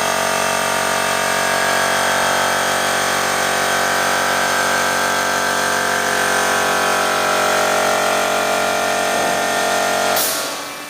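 Imet KTech-802-F6000 CNC double-column band saw running steadily with a hum and a high whine. It shuts down near the end with a brief hiss.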